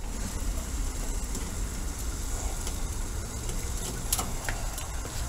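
Gas stove burner running under a steaming pot of water: a steady low rumble, with a couple of faint clicks near the end as nylon tubing is worked onto a metal fitting.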